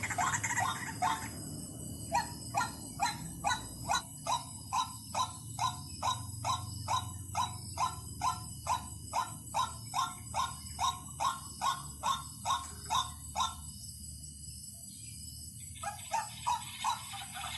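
White-breasted waterhen calling a long series of short, repeated 'kwak' notes, about two to three a second. The calls break off for a couple of seconds and start again near the end.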